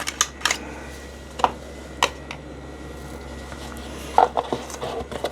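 Hands handling the unboxed keyboard and its accessories: a scattered series of light clicks and knocks of small hard plastic items being picked up and set down, with a small cluster about four seconds in.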